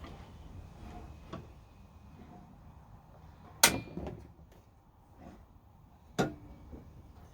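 A few sharp knocks, as of hard objects being set down or knocked together: a faint tap about a second in, the loudest knock about three and a half seconds in with a smaller one just after, and another strong knock about six seconds in.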